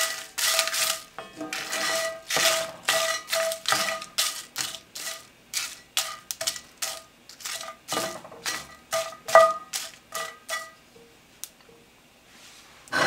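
Wooden spoon stirring whole dry spices and bay leaves in a cast-iron skillet: quick scrapes and knocks, about two or three a second, each with a brief ringing from the pan. The stirring stops about three-quarters of the way through.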